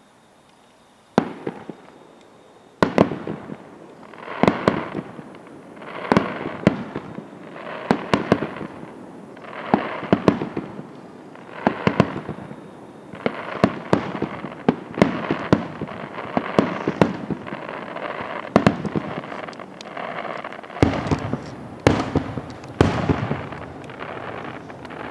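Aerial fireworks shells bursting: after about a second of quiet, a run of sharp bangs every one to two seconds, each followed by a fading tail, keeping up to the end.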